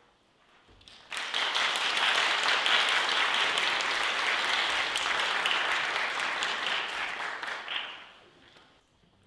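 Audience applauding, starting suddenly about a second in, holding steady, then dying away near the end.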